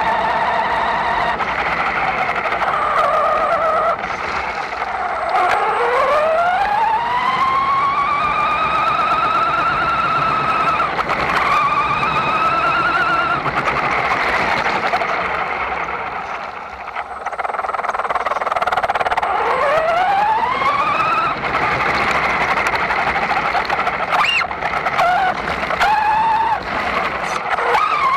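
Electric motor and gear drivetrain of a Traxxas Slash 4x4 RC truck, heard up close from the truck itself, whining up in pitch twice as it accelerates, about five and about nineteen seconds in, then holding and easing back between runs.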